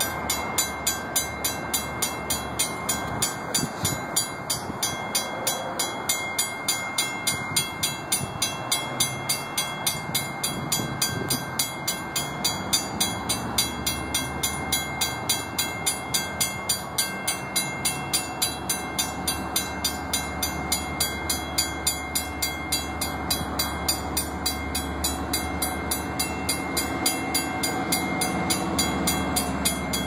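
Grade crossing bell ringing rapidly and steadily, about three strikes a second. Under it, the low engine sound of approaching EMD GP35 diesel locomotives builds and grows louder through the second half.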